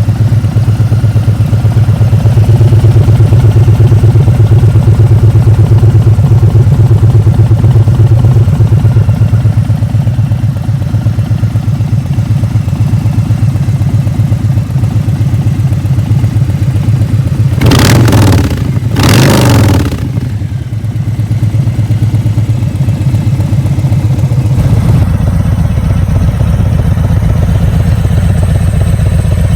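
Harley-Davidson V-twin motorcycle engine idling with a loud, pulsing exhaust note, then two quick throttle blips close together about two-thirds of the way through. The sound changes character near the end.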